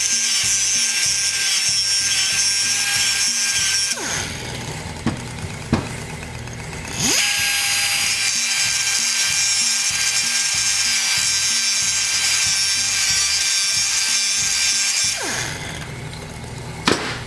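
Small handheld grinder with an abrasive disc grinding flats onto a snapped steel bolt stub in an aluminium small-engine cylinder head: a loud, steady, high whine with a grinding hiss. It cuts out and spins down about four seconds in, runs again from about seven seconds, and spins down again near the end, followed by a single clunk.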